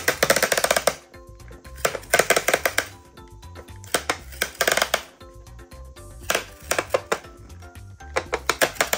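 Hand-cranked plastic sticker machine being wound in five short spurts, each about a second of rapid plastic clicking as the rollers press the drawing and sticker paper together.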